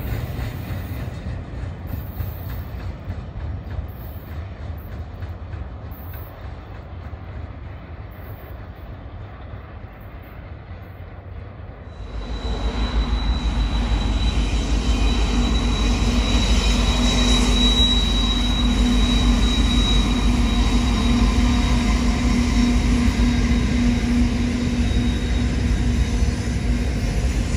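Freight cars rolling away over jointed rail, their rumble slowly fading. About twelve seconds in it turns suddenly louder: a group of diesel locomotives passing with a steady engine drone, a thin high wheel squeal for several seconds, then the heavy rumble of boxcars rolling by.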